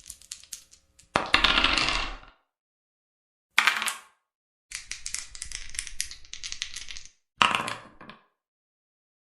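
Dice being thrown and clattering, in several separate rolls with silent gaps between them: soft rattling at first, then a loud clatter about a second in, a short one near four seconds, a longer run of rattling from about five to seven seconds, and a last short clatter near the end.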